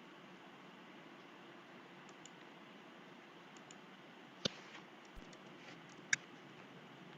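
A few scattered clicks at a computer, as on a mouse or keyboard, over a faint steady hiss. The two loudest come about four and a half and six seconds in.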